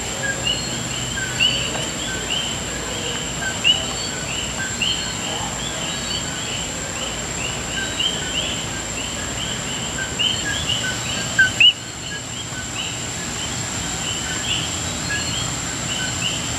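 Night chorus of common coquí frogs: many overlapping short two-note "co-quí" calls, the second note sweeping upward, over a steady high-pitched whine.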